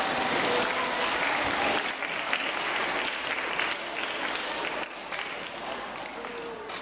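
Audience applauding, the clapping gradually fading.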